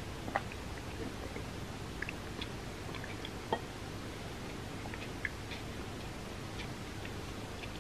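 Close-miked chewing: scattered soft, wet mouth clicks, with two sharper clicks about half a second and three and a half seconds in, over a steady hiss.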